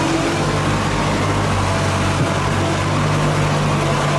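Machinery running steadily: a low, even hum over a constant hiss, with a slight shift in the hum's pitch about two seconds in.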